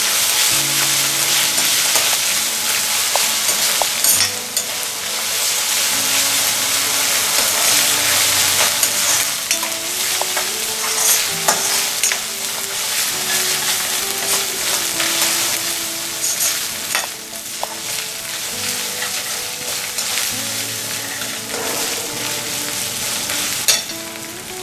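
Onions and ginger-garlic paste frying in hot oil in a kadai: a steady sizzle while a steel ladle stirs and scrapes through them, with now and then a sharp click of the ladle against the pan. This is the paste being cooked until its raw smell goes off.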